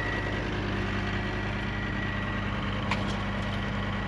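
John Deere skid steer loader's diesel engine running steadily at low revs, with a single brief click about three seconds in.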